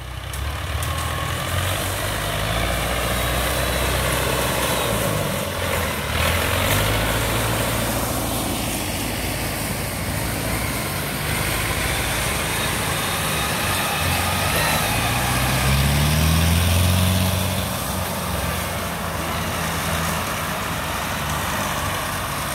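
Rice combine harvester's engine running steadily as it works through the paddy. Its pitch climbs for a couple of seconds about two-thirds of the way through, then settles.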